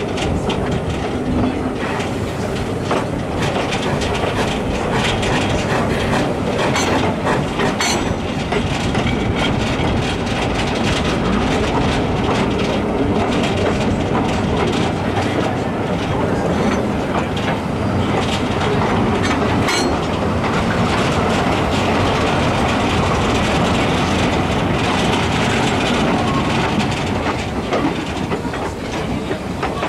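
Vintage K 92 steam locomotive and its open wagon running along the track: a steady loud rumble with the clickety-clack of wheels over rail joints, and a few sharp clicks about seven, eight and twenty seconds in.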